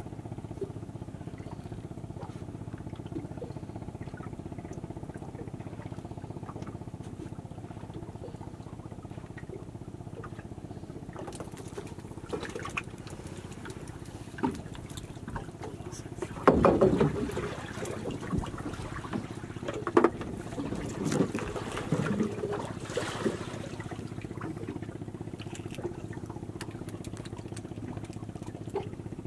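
A boat engine running steadily in the background, while a wet fishing net is hauled in over the wooden side of the boat. The net brings splashes, drips and rustles, loudest in the middle of the stretch.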